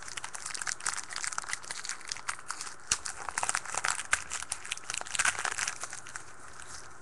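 Foil trading-card pack wrapper crinkling and crackling as it is handled and torn open, a dense run of irregular crinkles that dies down near the end.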